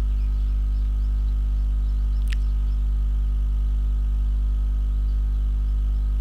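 Steady low electrical hum with a stack of overtones, typical of mains hum picked up by the recording microphone, with a faint higher steady tone above it. A single sharp click about two seconds in.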